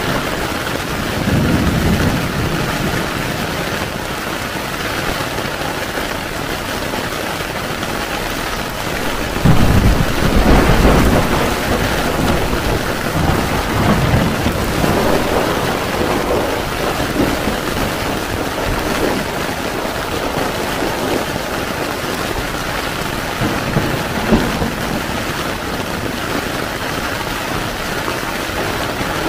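Heavy rain falling steadily on a tent's fabric, with low thunder rumbling several times, loudest about ten seconds in.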